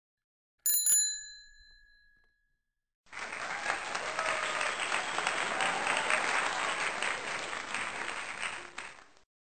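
A bright bell-like ding that rings out and dies away over about a second, then, after a pause, about six seconds of applause that tapers off near the end.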